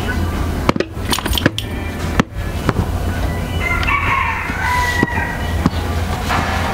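A rooster crowing once, a call of about a second and a half midway through. A few sharp knocks come about a second in, over a steady low rumble.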